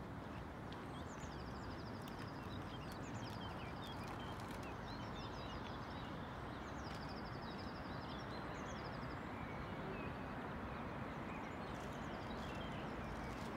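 Songbirds singing in the trees, with several fast repeated trills and scattered chirps, over a steady background rumble of outdoor ambient noise.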